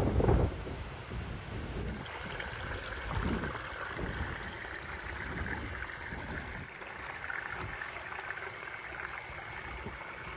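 Strong wind buffeting the microphone in low rumbling gusts, loudest in the first half second and again about three seconds in, over a steady fine hiss.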